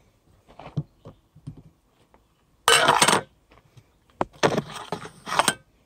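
Aluminium mess-kit plate set down on a metal table with a short clatter about three seconds in, a sharp click a second later, then scraping and rubbing as a damp wipe is worked around the plate's rim.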